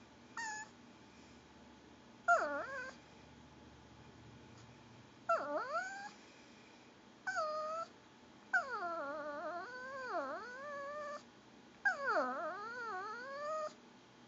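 Pomeranian dog making gurgling whines while begging for food: about six separate whines, each swooping down in pitch and back up. The first are short, and the last two are long and wavering.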